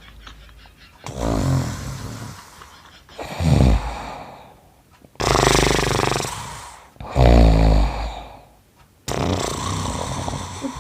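A man snoring loudly on purpose, putting on exaggerated snores as a prank. There are five heavy snores, each one to two seconds long, coming about every two seconds.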